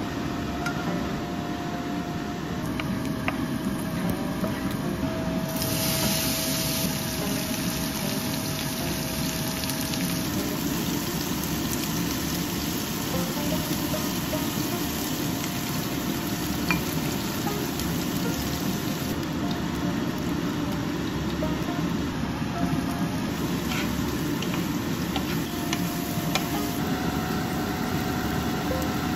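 Garlic slices and then diced beef frying in a nonstick pan, sizzling steadily over a low rumble, with a few light taps of chopsticks against the pan.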